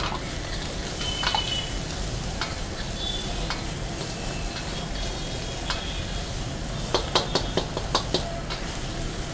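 Chopped vegetables sizzling in hot oil in a large wok, stirred and scraped with a long steel ladle: the aromatic base being fried for a gravy. Sharp clanks of the ladle against the wok come thick and fast near the end.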